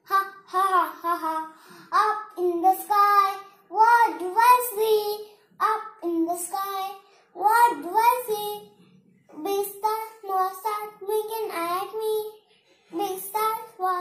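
A boy singing the lines of an English poem, in short phrases with brief pauses between them.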